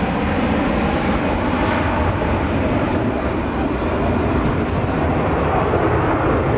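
Steady, loud drone of display aircraft engines from a formation flying overhead, with no breaks or sharp events.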